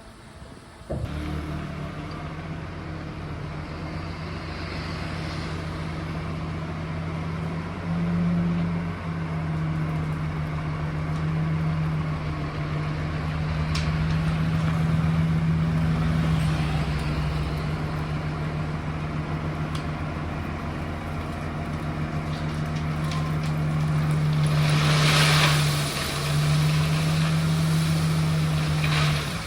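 Dump truck engine running steadily. Its pitch rises briefly about eight seconds in, and a short hiss comes a few seconds before the end.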